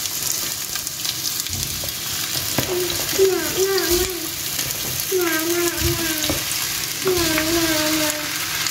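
Raw potato sticks sizzling in hot oil in a deep pan as more are tipped in from a bowl, with light clicks of pieces dropping. A small child's voice sounds three times, about a second each, near three, five and seven seconds in.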